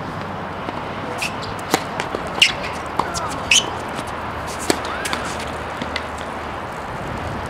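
Tennis rally on a hard court: a string of sharp pops from racket strings striking the ball and the ball bouncing, about half a dozen spread over a few seconds. The loudest come about two and a half and three and a half seconds in, over steady outdoor background noise.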